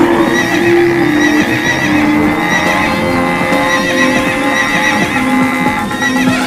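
Animal stampede sound effects: many hooves clattering, with horses whinnying again and again, laid over background music.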